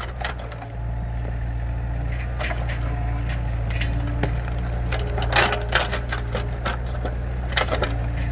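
Mini excavator's diesel engine running steadily under load while its bucket digs at an acacia tree stump, with repeated cracks and knocks of roots and soil being broken and scraped, the loudest a little past halfway.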